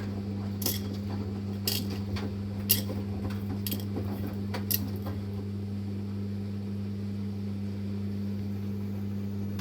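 Samsung Series 5 Eco Bubble washing machine running: a steady low hum, with sharp clinks about once a second for the first five seconds or so, then only the hum.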